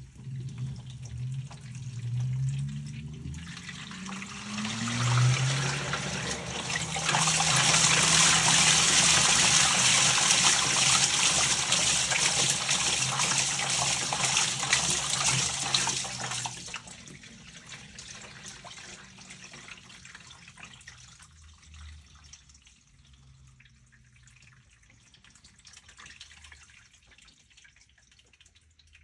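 LG Turbodrum top-loading washer in its rinse: a low hum rises in pitch twice in the first few seconds, then water rushes loudly into the tub for about nine seconds. It then eases to a quieter trickle and slosh.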